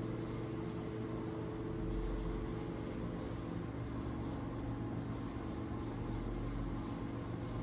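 Steady mechanical hum with several low, even tones and no change in level.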